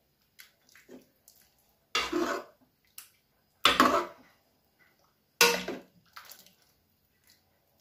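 Hot water poured into a kadhai of thick dal makhani in three short splashes, thinning the dal.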